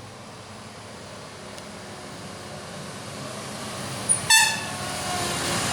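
Heavy vehicle's engine and road noise building steadily louder, cut by one short, high-pitched horn toot about four seconds in.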